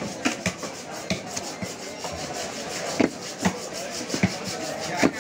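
Butcher's cleaver chopping buffalo meat on a wooden tree-stump block: irregular knocks of the blade through the meat into the wood, the loudest about three seconds in and just before the end.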